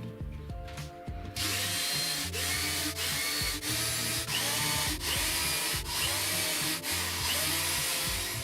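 Power tool running steadily with brief dips in its noise, starting about a second and a half in, over background music.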